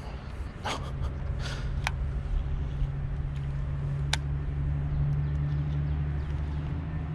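Steady low hum of a boat motor running at low speed, setting in about a second in, with a few sharp clicks on top.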